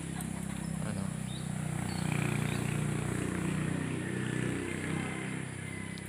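Low engine hum of a passing vehicle, swelling about two seconds in and fading after about four and a half seconds.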